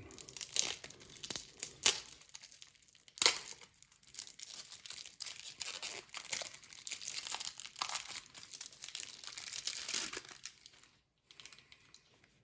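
Plastic packaging crinkling and tearing as a bagged deck of game cards is unwrapped, with a few sharp rips in the first few seconds. The rustling stops about eleven seconds in.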